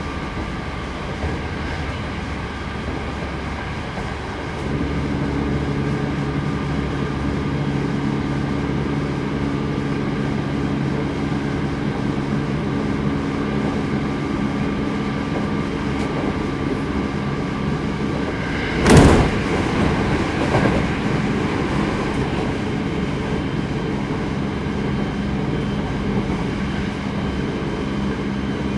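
Onboard running sound of a Hankyu 8200 series electric train at speed, with a steady rumble of the wheels on the rails. From about five seconds in, a steady low hum from the Toshiba GTO-inverter traction motors joins it. About two-thirds of the way through, a brief loud burst of noise stands out, followed by a smaller one.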